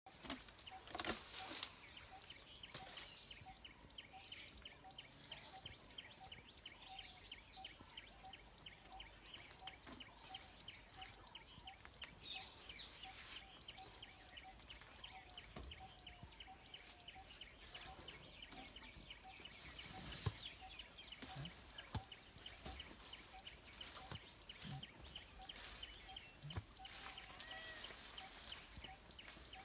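Faint outdoor ambience with a bird calling one short note over and over, about twice a second, and a few sharp knocks, loudest near the start.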